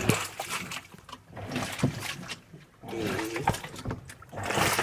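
Water and clothes churning in a small portable washing machine, in uneven swells of splashing with a few knocks.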